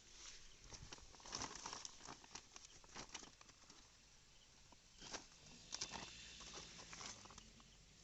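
Faint, irregular clicks and rustles in small clusters.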